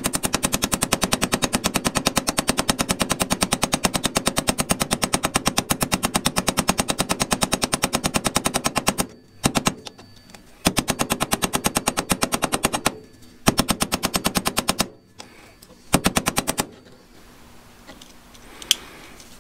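Small ball-peen hammer rapidly tapping a rivet on a steel locking wrench held on a vise's anvil, peening the rivet head over, at several blows a second. The run stops about halfway through, and three shorter runs of blows follow, then a single sharp clink near the end.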